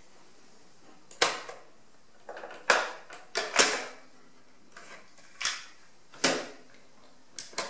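Sharp mechanical clicks and clunks from the cassette door of a 1974 Tandberg TCD 310 cassette deck as it is ejected open and handled. About eight separate clicks come at irregular intervals, each with a short ringing tail.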